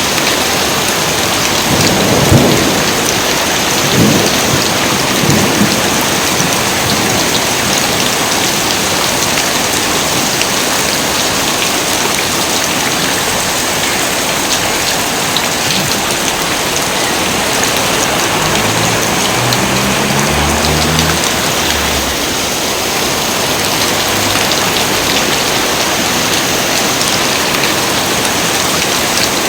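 Heavy rain falling in a steady, dense hiss, with thunder rumbling a few times in the first several seconds and again more faintly later on.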